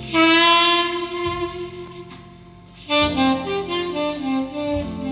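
Music played back on a Pro-Ject RPM-5 turntable through a Pathos Logos amplifier and floor-standing loudspeakers in the room. A lead instrument holds one long note, then plays a run of quick notes over a bass line from about three seconds in.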